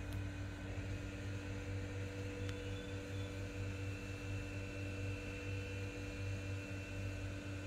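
Steady low electrical hum over a faint background hiss.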